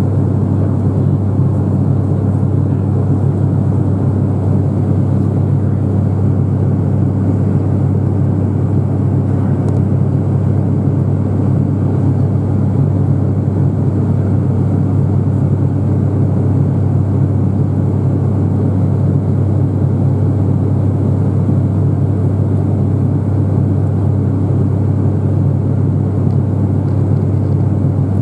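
Steady drone of an ATR turboprop airliner's engines and propellers in flight, heard from inside the cabin: a constant deep hum from the propellers over a noisy rush.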